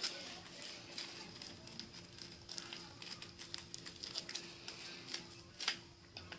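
Faint crinkling and small clicks as a homemade paper squishy stuffed with plastic bag is handled and squeezed, over a faint steady hum.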